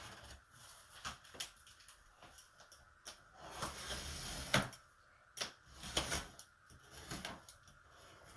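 Box cutter slitting the plastic wrap and cardboard of a large box: faint scattered clicks and scrapes, with a longer scraping cut around the middle that ends in a sharp click.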